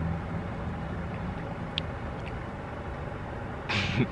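Low steady rumble of distant traffic, with a low engine-like hum fading out at the start. About three and a half seconds in comes a short slurping sip of hot coffee from a paper cup.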